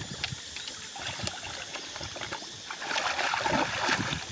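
Shallow muddy water being splashed and sloshed by hands groping for fish, with small drips and clicks at first and a louder stretch of splashing about three seconds in.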